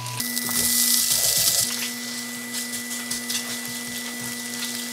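Food sizzling in a hot non-stick frying pan, loud for the first second or so, then quieter with a spatula stirring and scraping through it. Soft background music with long held notes plays underneath.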